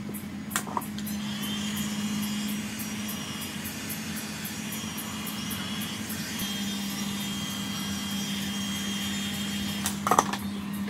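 A small electric motor running with a steady hum and a high whine above it. There is a sharp click about half a second in and a louder cluster of clicks near the end.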